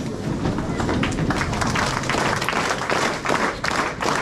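An audience of students applauding, the clapping filling in and getting louder about a second in.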